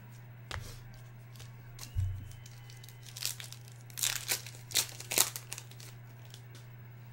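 A foil trading-card pack being torn open and crinkled, with a run of crackling rips between about three and five and a half seconds in. A dull thud comes about two seconds in.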